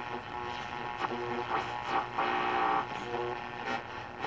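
Vacuum-tube radio's loudspeaker while the tuning dial is turned between stations: hum and whine with static, growing louder and noisier about two seconds in.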